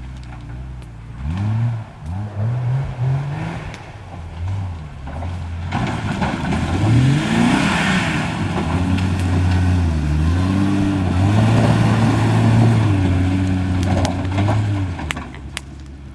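Dodge Dakota pickup's engine revving in a few short rising bursts, then held under steady load for several seconds with the pitch wavering, easing off near the end, as the truck climbs an off-road trail.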